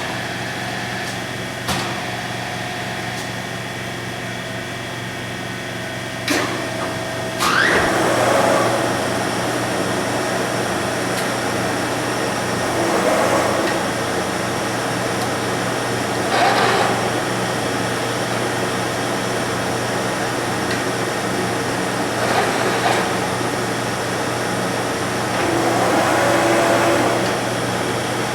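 Devlieg 43K-72 machine tool running under CNC control through a tool change and a drilling cycle: a steady hum, a few sharp clunks in the first several seconds, then five louder spells a few seconds apart.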